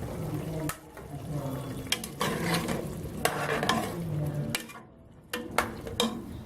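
A spoon stirring boiled chickpeas in a cooking pot, with several sharp clinks of the spoon against the pot.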